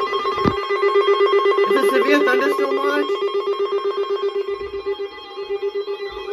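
An electronic tone ringing in a rapid, even pulse, like a telephone ringer, with a short wavering voice-like sound over it about two seconds in.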